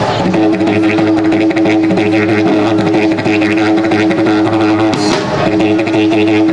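A live street band playing over one steady droning note, with drums and a cymbal crash about five seconds in.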